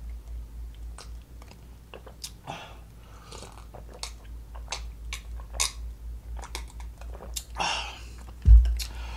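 Mouth sounds of a person drinking from a glass: swallows with small wet clicks. Near the end comes a breathy exhale, then one loud thump.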